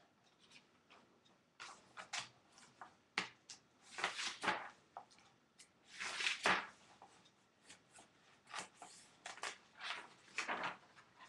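Rustling and clicking of objects being handled at a desk, coming in irregular short bursts with a few longer swishes.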